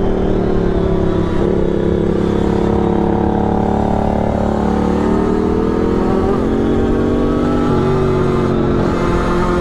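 Aprilia RS4 50's two-stroke single-cylinder engine pulling under riding load, its pitch rising and falling with the throttle and jumping suddenly twice, as at gear changes. Wind rushes on the microphone.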